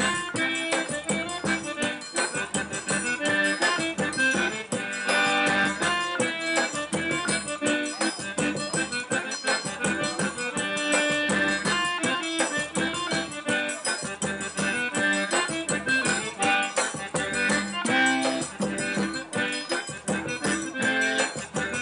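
Eight-bass diatonic button accordion (pé de bode) playing a traditional Bahian sertão tune, melody with a steady, regularly pulsing bass.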